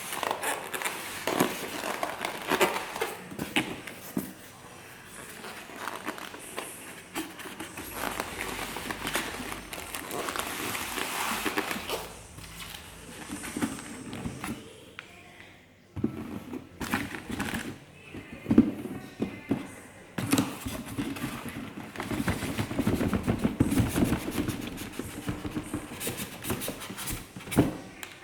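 Packaging being handled and unwrapped: irregular crinkling and rustling with scattered clicks and a few sharp knocks.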